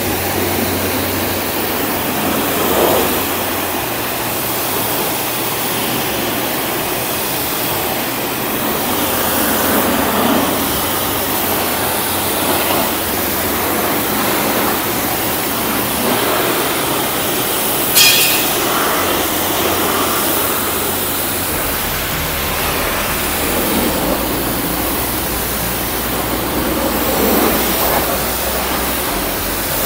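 Karcher HD 6/15-4 Classic electric pressure washer's high-pressure jet spraying water onto a car's tyre and wheel arch, a loud, steady hiss with a low hum underneath. A short, sharp rise in the hiss about eighteen seconds in.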